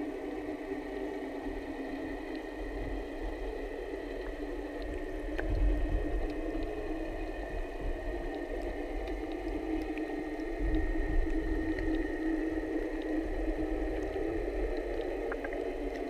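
Muffled underwater sound heard through a GoPro's waterproof housing: a steady hum with low rumbling swells and scattered faint ticks.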